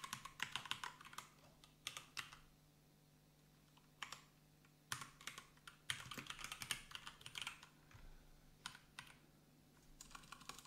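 Faint typing on a computer keyboard: runs of quick key clicks with pauses of a second or so between them.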